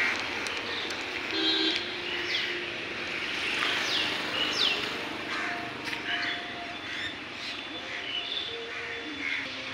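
Roadside outdoor ambience with steady traffic noise and birds calling: several sharp falling whistles in the first half. A short vehicle horn toot sounds about a second and a half in.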